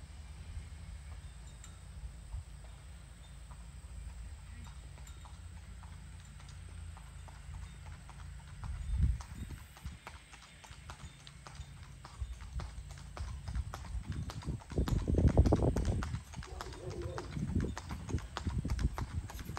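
A trotting horse's hooves clip-clopping on an asphalt road as it pulls a two-wheeled cart, the hoofbeats growing louder as it comes closer. A low rumble runs underneath and swells loudest about 15 seconds in.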